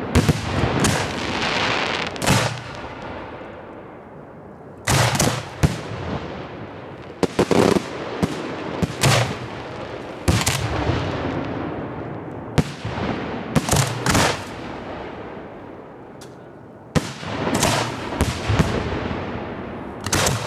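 Professional display firework shells going off in quick succession: clusters of sharp bangs every two to four seconds, each cluster trailing off into a fading hiss before the next.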